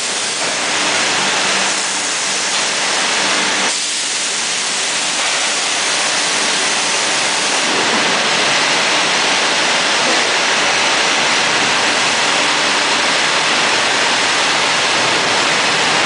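Steady, loud rushing noise of a cheese plant's production floor, with a faint low hum during the first few seconds.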